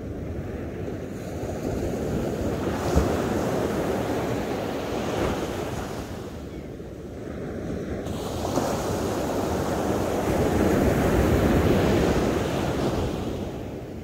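Atlantic surf breaking on a sandy beach. Two waves in turn build, crash and wash up the shore. The first breaks with a sharp slap about three seconds in. The second swells from about eight seconds in and fades near the end.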